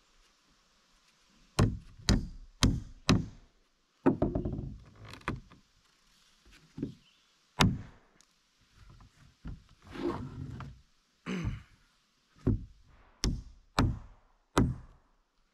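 Claw hammer driving nails into pine 2x4 framing: a series of sharp blows in quick runs of three or four, with a longer pause and some handling noise in the middle.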